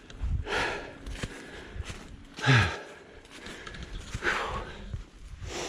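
A hiker breathing hard on a steep uphill climb: four heavy exhales, about one every two seconds, one of them with a low voiced grunt.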